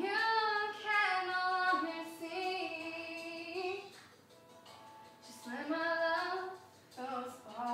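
A high voice singing with long held notes: one long phrase, a pause of over a second, then a shorter phrase, and a third starting near the end.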